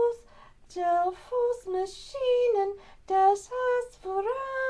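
A woman singing a song in Dutch, one voice in a high register, moving through held notes that step and glide between pitches, with short breaths between phrases.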